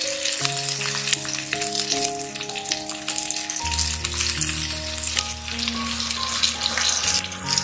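Mutton seekh kebabs on bamboo skewers sizzling in a hot, oiled grill pan, with background music.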